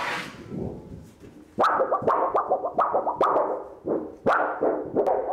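A thin flexible steel print sheet rustling and wobbling as it is slid off a 3D printer's bed, fading within the first second. About a second and a half in, music with short, sharply struck notes starts and carries on.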